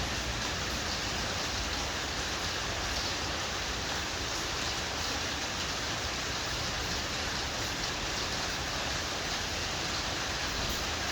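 Steady, even hiss with no distinct events, the same background that runs under the surrounding speech.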